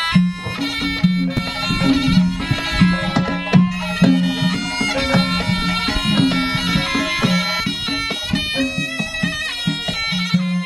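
Javanese jaranan ensemble music: a shrill slompret reed pipe plays a melody over drums and low held notes.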